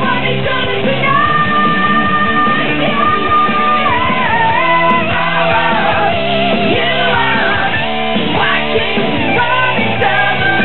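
Glam/hard rock song with electric guitar, drums and a male singer, with a long held high note from about one to four seconds in. The sound is dull and muffled, cut off above the midrange as on an old VHS tape recording.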